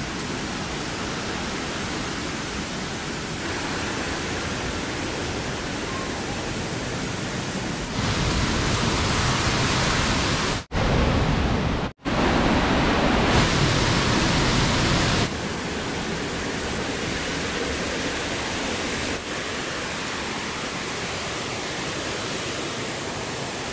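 Steady rush of a waterfall. Its level steps up and down abruptly a few times, with two brief gaps near the middle.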